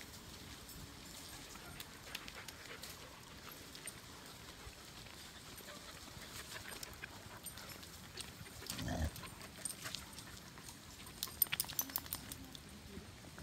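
A pack of dogs moving on a wet paved road, with faint scattered clicks and patters from their paws. About nine seconds in a dog gives a short, low vocalisation. Near the end there is a quick flurry of sharp clicks.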